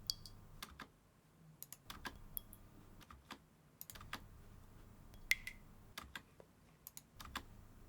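Computer keyboard and mouse clicking irregularly at a desk, with two faint short high pings, one at the start and one about five seconds in.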